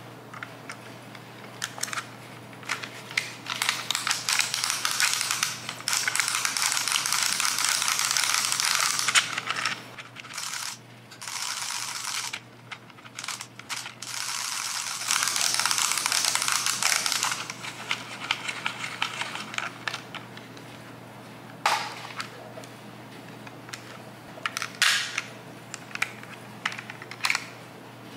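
Plastic film-winding mechanism of a Manual reusable 35 mm film camera ratcheting in long stretches of dense fine clicking as the knob is turned to wind the film back into its cartridge. Later come shorter bursts and single clicks.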